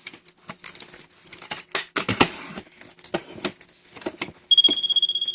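Irregular crinkling and clicking handling noises. About four and a half seconds in, a steady high-pitched beep starts and holds: a moisture meter's tone sounding on a wet reading.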